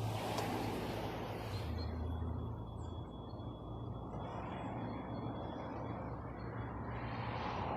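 ET2M electric multiple unit approaching the platform: a steady low hum with a running rumble, and a hiss that swells at the start and again near the end.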